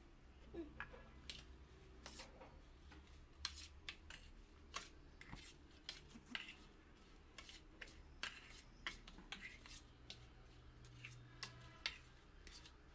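Metal spoon stirring grated coconut in a stainless steel plate: quiet, irregular clinks and scrapes as the spoon knocks against the plate while the filling is mixed.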